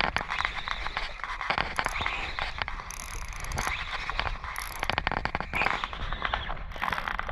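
Spinning reel being cranked while a fish is on the line: dense runs of fast gear clicks and scraping that come and go in short spurts.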